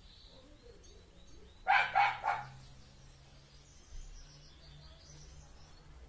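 A dog barking three times in quick succession, about two seconds in.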